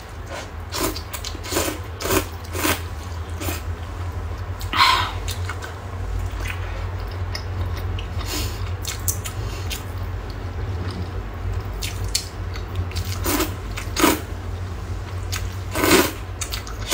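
A person slurping rice noodles and soup broth and chewing: scattered short wet slurps and mouth sounds, the loudest about five seconds in and again near the end, over a steady low hum.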